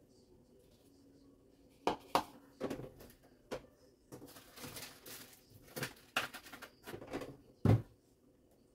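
Containers and food packages being handled inside an open refrigerator: a series of light knocks and clatters, a rustle of plastic packaging about halfway through, and a heavier thump near the end.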